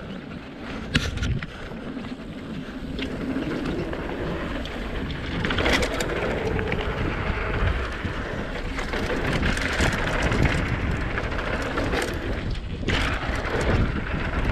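Mountain bike descending a flow trail: tyres rolling steadily over the dirt, with wind rumbling on the microphone and a few sharp clicks and rattles from the bike.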